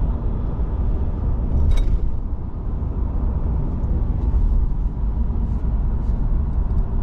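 Steady low engine and road rumble heard from inside a truck cab while driving, with one short click about two seconds in.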